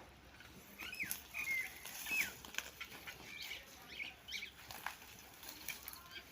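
Small birds chirping: short, sliding calls scattered irregularly, with a few sharp clicks among them.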